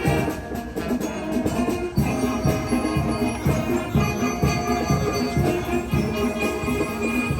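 School wind band playing, with held brass and woodwind notes over a steady drum beat of about two strokes a second.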